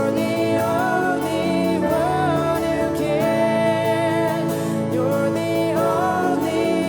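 Worship music: a voice singing a melody over steady, sustained instrumental chords.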